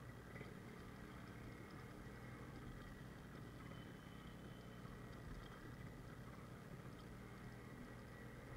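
Yamaha RX100's two-stroke single-cylinder engine running as the motorcycle rides along, heard as a faint, steady low rumble.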